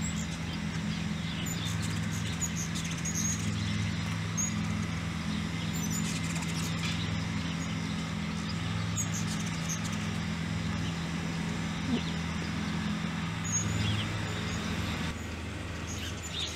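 Low buzzing hum of ruby-throated hummingbirds' wings as they hover, swelling and fading, with scattered high chip notes. The hum stops abruptly about 15 seconds in.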